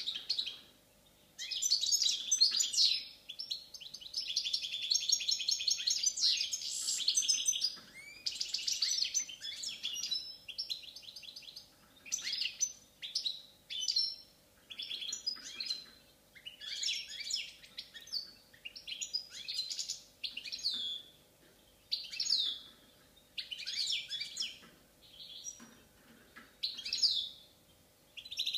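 Balkan goldfinch (Carduelis carduelis balcanica) singing: a long unbroken run of rapid twittering and trills for about the first ten seconds, then shorter twittering phrases roughly once a second.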